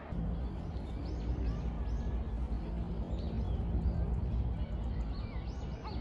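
Small birds chirping in short, repeated calls over a low, uneven outdoor rumble.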